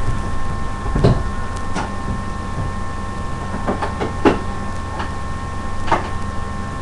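A steady machine-like hum with a few short, soft knocks and clicks scattered through it, the loudest a little past four seconds in.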